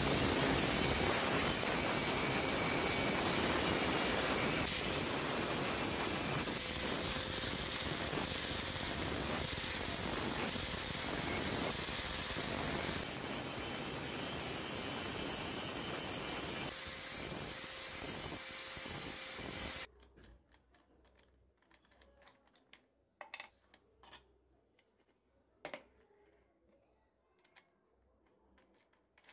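Electric angle grinder grinding the spring-steel blade of a billhook forged from a truck leaf spring: a steady, loud grinding that eases a little about 13 s in and stops abruptly about 20 s in. After that come a few faint clicks and taps as a flap disc is fitted onto the grinder's spindle.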